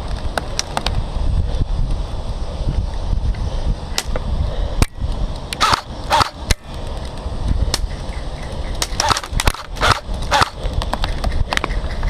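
Airsoft guns firing during a game: scattered sharp shots, bunched in quick clusters around the middle and again near the end, over a low rumble of handling and wind on the microphone.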